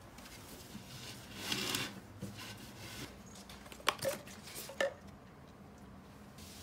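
Skincare bottles set down one after another into a woven seagrass basket: a soft rustle about a second and a half in, then three light knocks between four and five seconds in.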